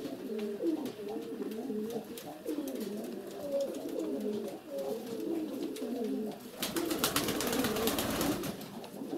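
Several domestic pigeons cooing at once in overlapping, wavering low calls, with a burst of rustling and clatter about two-thirds of the way in.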